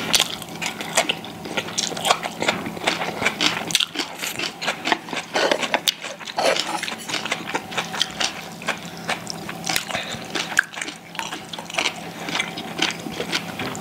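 Close-up eating sounds of people chewing pan-fried jeon, with wet mouth sounds and many small irregular clicks, including taps of chopsticks on the dishes.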